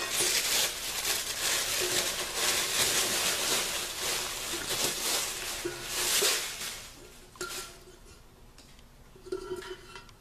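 Plastic packaging crinkling and rustling as a new cookware pot is unwrapped by hand, dying away after about seven seconds, with a single light knock of the pot about seven seconds in.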